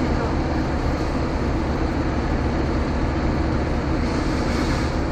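Scania truck's diesel engine running steadily at low revs, heard from inside the cab during a slow maneuver. A soft hiss rises briefly near the end.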